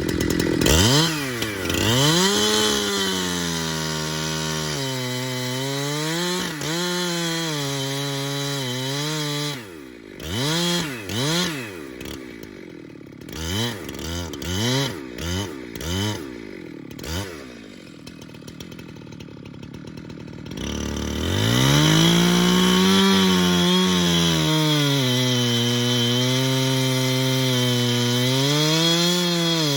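Jonsered chainsaw's two-stroke engine cutting into a tree trunk at high revs, the pitch sagging and recovering as the bar bites. About ten seconds in it drops out of the cut and is blipped in a string of short revs, falls back to a low idle, then goes back to full throttle and cuts steadily near the end.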